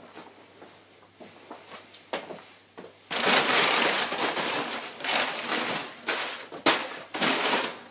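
Crumpled brown packing paper rustling and crinkling as it is pulled by hand out of a cardboard box. A few faint rustles, then loud, continuous crinkling from about three seconds in.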